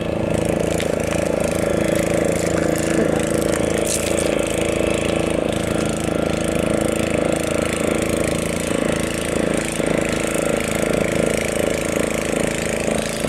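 A motor engine running steadily at constant speed, an even drone that holds without change.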